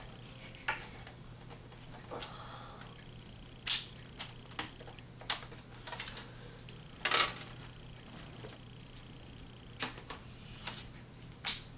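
Scattered sharp plastic clicks and knocks of a laptop being handled as its battery is fitted, about ten of them at uneven spacing over a faint steady hum.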